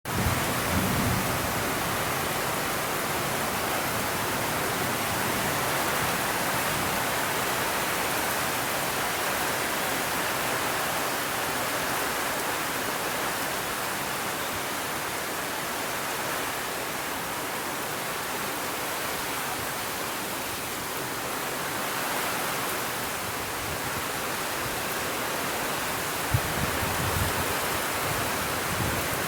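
Steady rain, a dense even hiss with no single drops standing out. There is one sharp click near the end.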